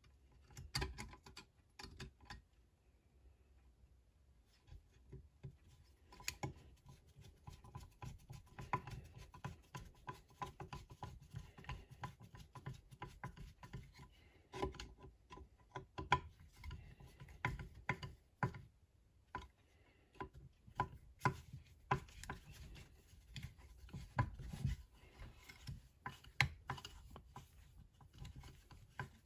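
Hand tools and small metal parts working on a chainsaw kit's crankcase: irregular, quick clicks, taps and scrapes of metal on metal.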